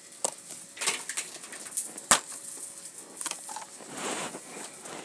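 Plastic DVD case being handled and opened: a series of sharp plastic clicks and snaps, the loudest about two seconds in, then a rustle of hands on the case.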